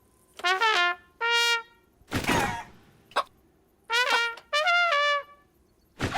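Trumpet played in a string of short blasts, some bending down in pitch. A loud burst of noise comes about two seconds in, and a short click follows.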